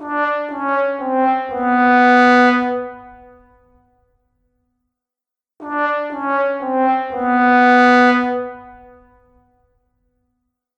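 Sad trombone sound effect: a brass instrument plays three short falling notes and then a long, lower note that fades out. It plays twice, the second time starting about five and a half seconds in. This is the stock comedic cue for failure or disappointment.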